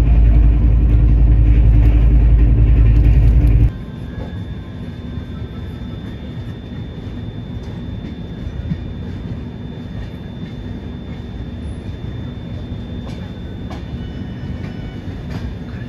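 Indian Railways express train running, heard from inside a coach. A loud low rumble for the first few seconds cuts off abruptly to a quieter, steady running noise with a faint steady high whine.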